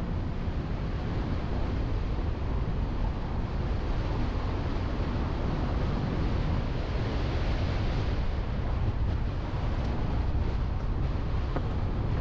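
Wind rushing over the microphone of a moving car's onboard GoPro camera, a steady low rumble of wind and road noise with no engine tone standing out.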